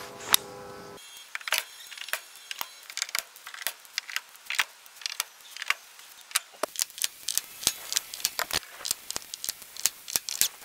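Metal staples being pried out of quarter-inch plywood with a small metal hand tool: a string of sharp, irregular clicks and snaps, a few per second, starting about a second in.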